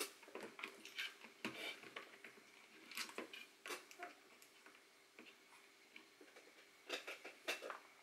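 Scattered light clicks and taps, with a cluster near the end: small tools and the laptop's plastic bottom cover being handled.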